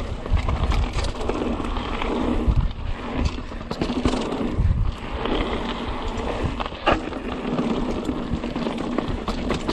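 Mountain bike descending a dirt trail: tyres running over the ground and the bike rattling over bumps, with gusty wind rumble on the microphone. There is a sharp knock about seven seconds in.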